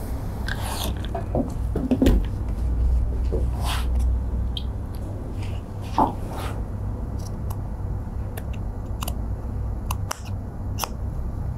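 Fringed fabric stripes being handled and rustled, then scissors cutting through them with a run of short snips in the second half, over a steady low hum.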